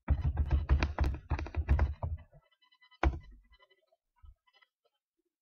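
Typing on a computer keyboard: a quick run of keystrokes for about two seconds, then one harder single key press about three seconds in, the Enter key that sends the typed web address.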